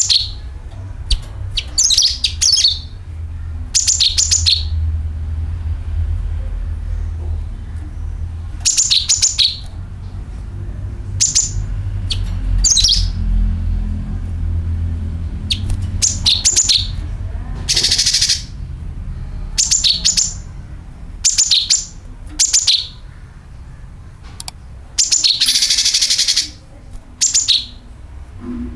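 Cucak kinoi calling: short, high chattering phrases of rapid rattling notes come every second or two, with longer buzzy rasping trills about two-thirds of the way through and again near the end. A steady low rumble runs underneath.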